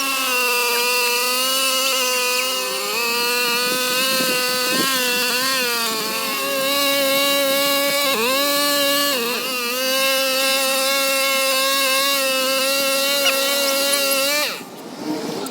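Small petrol engine of a 4-in-1 lawnmower running at high speed with a steady high-pitched whine. Its pitch dips briefly a few times, then it is switched off about a second before the end, the whine falling away.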